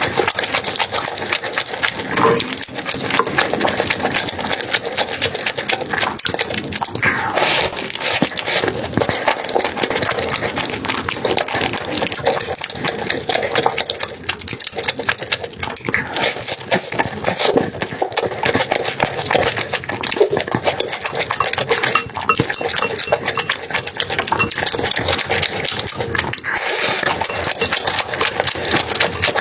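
Close-miked chewing of a burger: a steady run of small mouth clicks and smacks.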